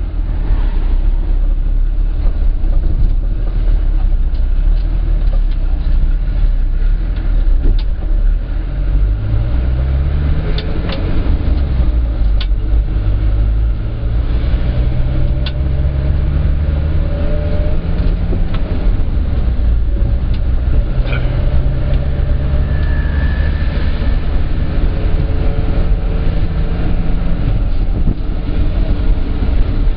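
Minibus engine running with road rumble, heard from inside the cab. The engine pitch climbs as it accelerates about ten seconds in, then holds steady, with a few sharp rattles along the way.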